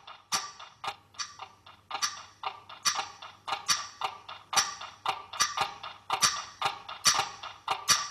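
Rhythmic metallic ticking, an even beat of sharp, ringing strikes at about two to three a second, over a faint low hum.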